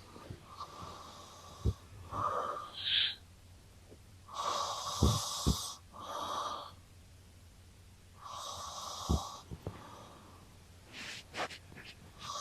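A sleeping man and a cat snoring, several snores a second or two apart. One has a short rising whistle about three seconds in.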